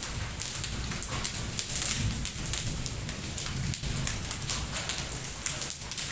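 Hailstones falling in a storm, pelting hard surfaces in a dense, irregular patter of sharp ticks over a steady rush.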